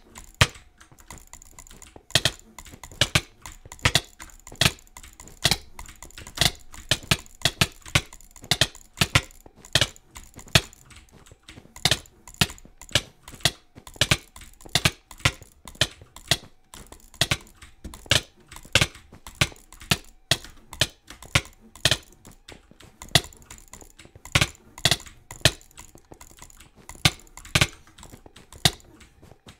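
An irregular run of sharp clicks, roughly two or three a second, some coming in quick pairs, with no let-up.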